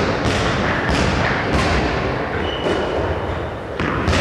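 Balls being hit and thudding off the walls and floor of a gym hall during indoor baseball batting practice: four sharp thuds, three in quick succession and one near the end, each echoing through the hall, with a brief high squeak midway.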